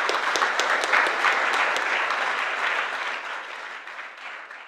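Audience applauding at the end of a talk, strongest about a second in and then slowly fading.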